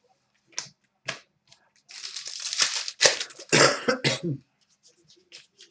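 Cards and a foil card-pack wrapper handled: a few light clicks, then about a second of crinkling and tearing. A person coughs about three seconds in.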